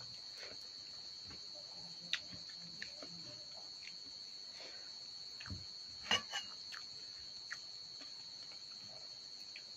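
Crickets trilling steadily at a high pitch, with scattered soft clicks and smacks of someone eating rice by hand from a steel bowl; the loudest clicks come a little past the middle.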